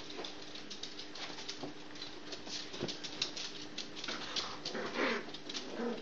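Yorkshire terrier puppies playing: quick clicks and scrabbling of small claws on a laminate floor, with a few short puppy growls about four to five seconds in.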